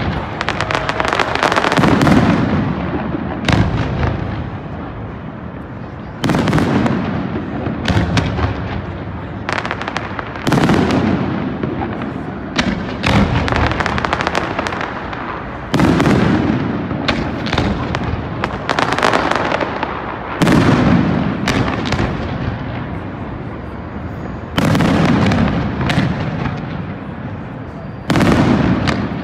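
Aerial firework shells bursting one after another, a loud boom every one to three seconds, each trailing off. There is dense crackling in the first two seconds.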